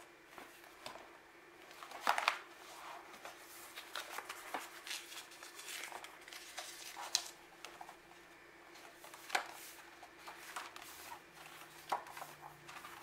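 A traveler's notebook and its paper inserts being handled: scattered soft rustles, paper slides and light knocks, the sharpest about two seconds in, about seven seconds in and about nine seconds in.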